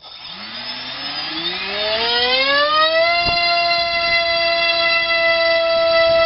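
Multistar Viking 1808 2600kV brushless outrunner motor spinning an APC 6x4 gas propeller on a 3-cell battery. It spins up with a whine that rises in pitch over about three seconds, then holds at a steady pitch.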